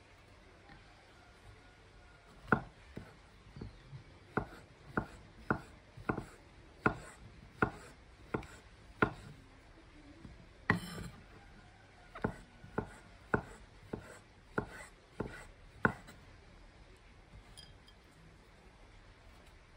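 A chef's knife slicing button mushrooms on a wooden cutting board: a run of sharp knocks of the blade on the board, about one and a half a second. It starts about two seconds in, breaks off briefly near the middle with one louder knock, and stops a few seconds before the end.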